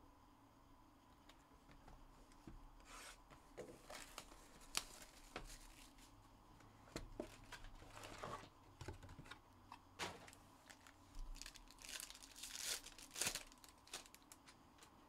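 2021 Panini Contenders Baseball hobby box opened by hand and its card packs torn open: faint, intermittent crinkling and tearing of the pack wrappers, with the loudest tears in the last few seconds.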